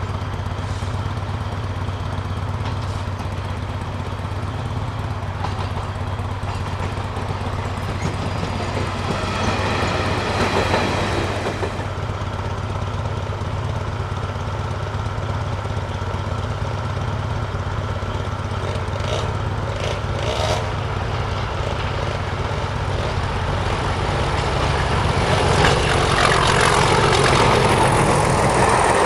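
Diesel locomotive engines with a steady low throb: first a Class 66 running light, then a Class 37 approaching. In the last few seconds the Class 37 and its train of coaches pass close by, and the engine and wheel noise swells loud.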